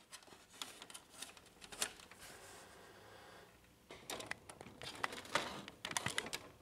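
Light plastic clicks and rattles as the support band is fitted onto its mount on a Brother HL-1110 laser printer's plastic panel, with a quick run of clicks in the last couple of seconds.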